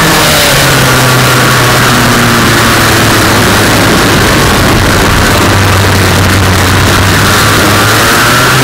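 Racing kart engine heard from onboard, held at low revs through a slow corner, then revving up again near the end as the kart accelerates out. A constant rush of wind and road noise runs underneath.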